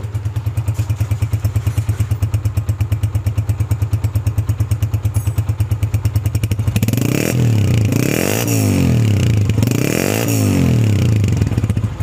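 Honda CG125's single-cylinder four-stroke engine idling slowly with an even beat, then revved up and down several times from about seven seconds in. The tappets have just been adjusted and the oil changed after its 500 km running-in, and the owner calls the engine sound smooth.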